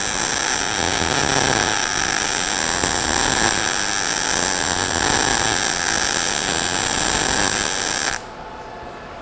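MIG welding arc from an ESAB Rebel 235 in sMIG mode, at 230 in/min wire feed and about 115 A and 17.7 V, running steadily and smoothly on a fill pass in a steel groove joint. The arc stops suddenly about eight seconds in.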